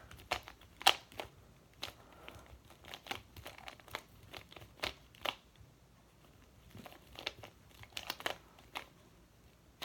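Plastic speedcube being turned quickly during a timed solve: an irregular run of light clicks and clacks as the layers snap round.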